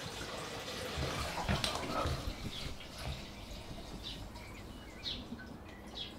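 Diesel pouring from a jerry can through a plastic funnel into a plastic container, glugging irregularly in the first half.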